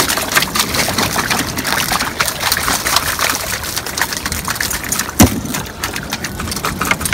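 Water dripping and splashing off a freshly pulled lobster hoop net as gloved hands work the wet mesh, with a steady patter of small clicks and rattles and one sharp knock about five seconds in.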